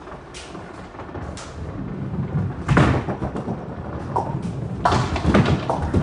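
Nine-pin bowling ball set down hard on the lane with a loud thud about three seconds in, then rumbling down the lane. A clatter of knocks from the pins follows about two seconds later.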